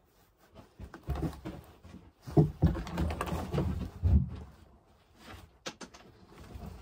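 Handling noise as a scoped rifle is lifted off a wooden shooting bench and brought to the shoulder: knocks and rustling of a padded jacket, loudest in two thumps in the middle. A few light clicks follow near the end.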